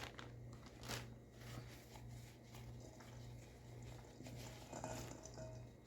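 Faint, soft handling sounds as shredded mozzarella goes into a bowl of ground chicken, with a light click about a second in, over a steady low hum.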